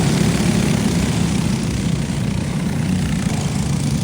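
Go-kart engines running steadily, a continuous drone.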